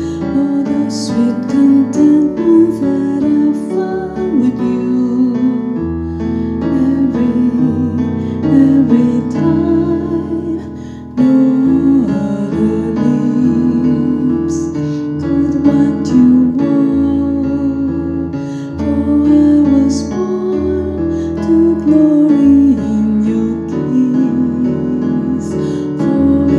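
A woman singing a slow, tender ballad with vibrato, accompanying herself on an electric piano keyboard with sustained chords and held low bass notes.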